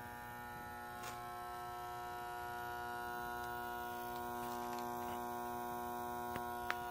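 Steady electrical hum from an oil-fired water heater's burner after a reset, which the owner believes comes from the ignition transformer; the burner is not giving hot water. A few faint clicks sound about a second in and near the end.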